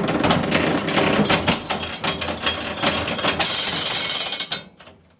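Old streetcar rattling and clattering, followed by a burst of air hiss from its air brake valve about three and a half seconds in. The sound dies away just before the end.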